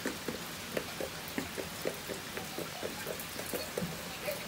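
Pouring rain: a steady hiss with many quick, close taps several times a second.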